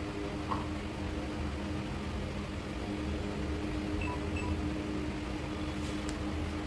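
Steady mechanical hum from a motor-driven machine such as a kitchen fan, with a few faint light clicks.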